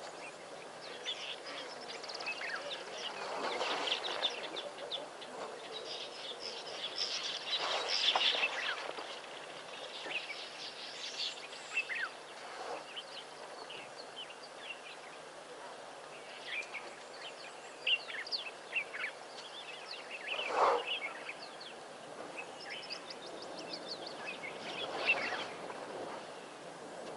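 Several wild birds chirping and calling in short, overlapping notes over a steady background hiss, with a few louder calls along the way.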